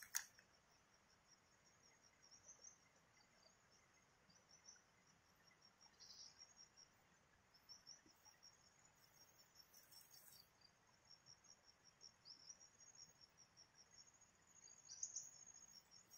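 Faint insects chirring, a steady pulsed high trill, with a few brief rustles.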